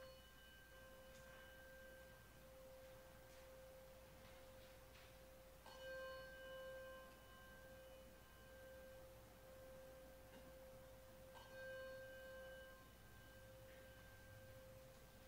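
Faint bell-like chime on a single note, struck anew at the start, about six seconds in and about eleven seconds in, each strike ringing on until the next.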